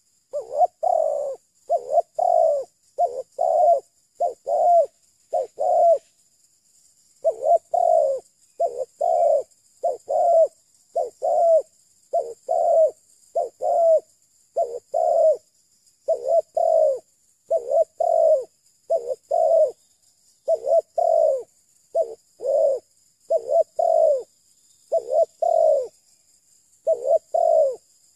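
Spotted dove cooing over and over: short low coos coming mostly in pairs and threes, with a brief break about six seconds in.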